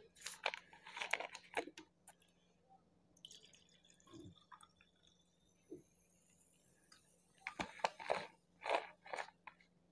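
Close-up mouth and throat sounds of someone drinking a fizzy apple soft drink: wet clicks and gulps of swallowing in two short clusters, one at the start and one about three quarters of the way in.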